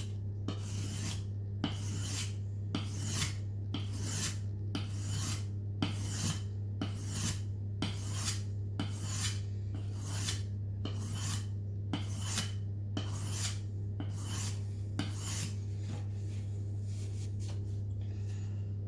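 A Mora Bushcraft Black carbon-steel scandi-grind knife blade drawn in single strokes across a wet whetstone, about two rasping strokes a second, ending about a second before the end. The strokes sound smooth as the edge gets sharper and polishes up.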